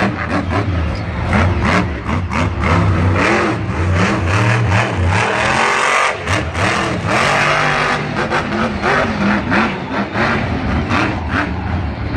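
Monster truck's supercharged methanol V8 revving hard, the throttle blipping on and off as the truck jumps and slides on the dirt, with the engine easing off briefly about six seconds in.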